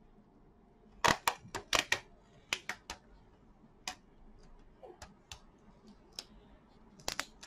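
A quick run of sharp clicks and taps about a second in, then scattered single clicks and a short cluster near the end: a small metal tool prying and tapping at the plastic underside of a laptop to work its rubber foot strip loose.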